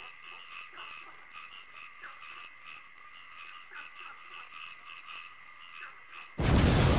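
Night ambience of frogs calling in short repeated notes, about three a second, over a steady high trill. Near the end a loud rushing blast cuts in suddenly.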